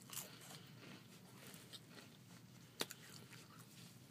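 Faint close-up chewing and mouth sounds of a person eating a snack, with one sharp click a little under three seconds in.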